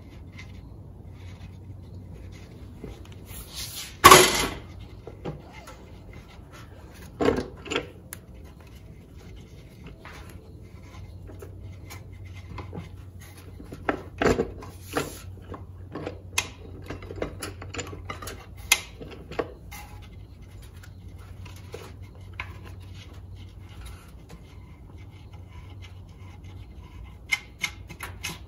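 Scattered metal clinks, knocks and scrapes of tools and parts against an aluminium Chrysler A-904 transmission case as the second-gear band adjuster is worked loose. The loudest knock comes about four seconds in, over a low steady hum.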